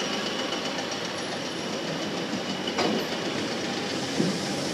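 Sydney Trains S set double-deck electric train pulling out of the platform, its wheels rolling steadily past with a faint high whine. One short knock comes a little before halfway.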